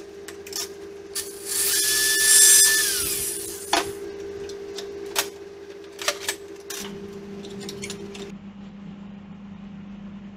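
A small power tool runs for about three seconds with a steady high whine that drops in pitch as it winds down, followed by several light sharp clicks and taps of handled metal parts.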